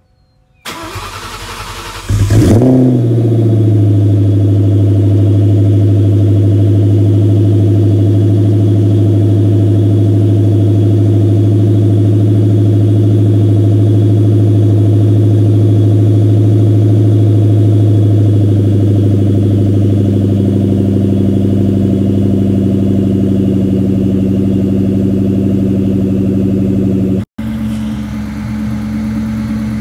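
2003 SVT Mustang Cobra's supercharged 4.6-litre V8 cold-started after sitting a few days. The starter cranks for about a second and a half, then the engine catches with a brief flare of revs and settles into a loud, steady idle. Near the end there is a short break, after which the engine idles more quietly.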